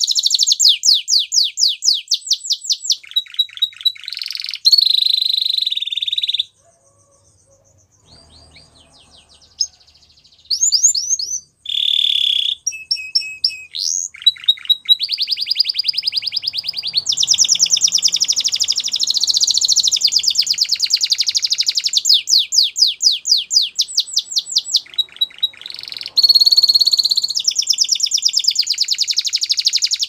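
Spanish Timbrado canary singing: long runs of rapid repeated notes and trills. The song breaks off for a few seconds about a quarter of the way in, then resumes.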